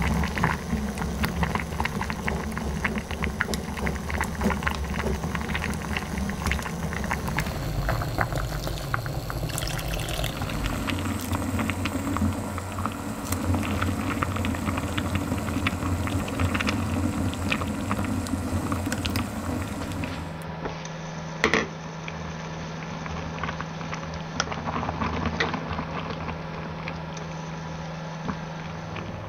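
Water bubbling at a boil in a stainless steel pot with a whole octopus in it, full of small crackles and pops. About two-thirds of the way through there is one sharp knock, likely wooden chopsticks against the pot as the octopus is turned. A steady low hum runs through the second half.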